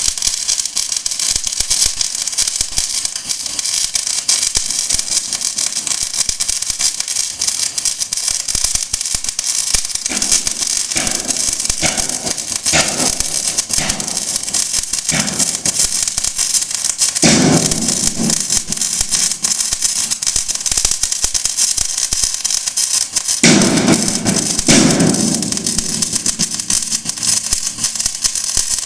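CO2 MIG welding arc, crackling and sputtering steadily as the wire short-circuits into the weld pool, with several brief louder, deeper surges.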